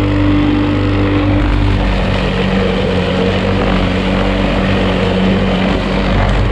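Outils Wolf lawn mower engine running steadily while cutting tall grass.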